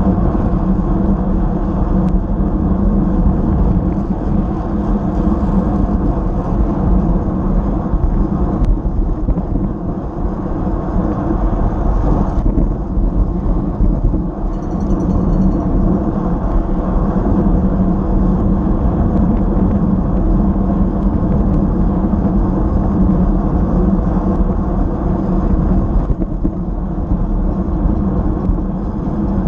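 Steady wind rush and road noise on a bicycle-mounted action camera moving at about 24 mph.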